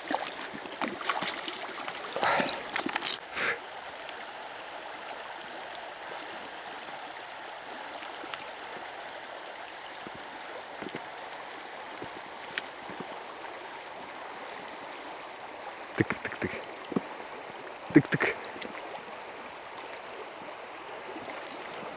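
Shallow river water running steadily over stones. In the first few seconds a hooked fish splashes several times at the surface, and a couple of sharp knocks come near the end.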